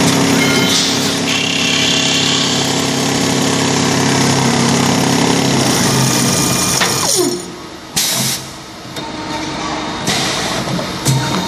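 Automatic wood ball lathe running, its spindle and cutters turning a wooden dowel: a steady machine hum with cutting noise. Partway through the pitch falls and the sound drops away, with a sharp clack, then the machine picks up again near the end as the next length of stock is fed in.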